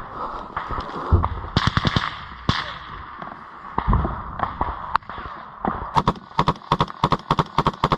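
Close automatic gunfire. A short burst comes about one and a half seconds in, then scattered single shots, then a rapid string of shots from about six seconds in, roughly six a second.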